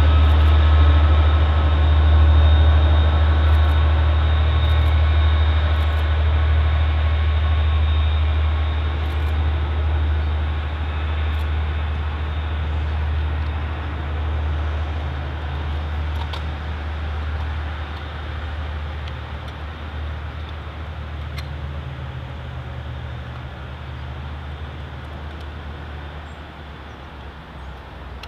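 Two Class 57 diesel locomotives with EMD two-stroke V12 engines heading away. Their engines make a deep, steady drone that fades slowly as they recede.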